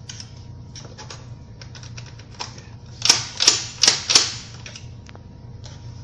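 Metal parts of a Vingcard mortise lock clicking and clacking as they are worked by hand: scattered small clicks, then four loud rattling clacks in quick succession about three seconds in.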